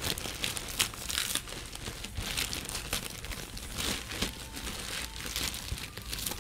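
Parcel packaging crinkling and tearing as it is unwrapped by hand, in irregular rustles.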